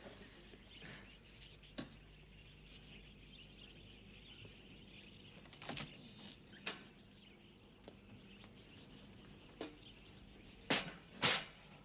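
A quiet room with a faint steady background and a few scattered soft clicks, then two sharp knocks about half a second apart near the end.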